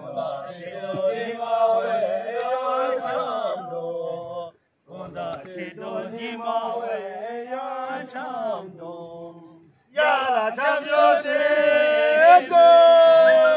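Men chanting a traditional Bhutanese archery song together, the sing-song cheering archers raise to celebrate and taunt during a match. The chant goes in long wavering phrases with two short breaks and ends on a loud, long held note.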